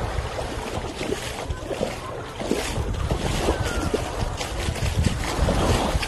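Wind buffeting a phone's microphone in uneven gusts, over the wash of small waves on a sandy beach.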